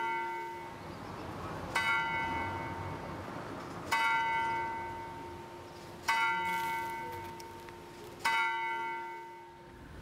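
Clock-tower bell striking four times at about two-second intervals, each stroke ringing out and fading before the next. A faint steady hum lies underneath.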